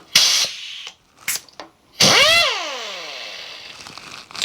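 Short hiss of compressed air, then the butterfly air impact wrench on the Kurt power drawbar spins up briefly and winds down. Its whine rises quickly and falls away over about two seconds.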